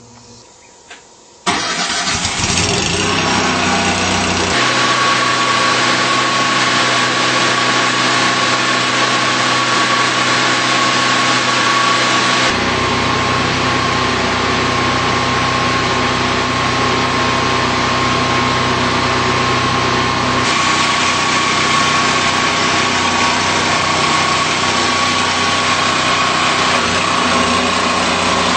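An engine starts abruptly about a second and a half in, then runs steadily and loudly, its low rumble dropping away and coming back a couple of times.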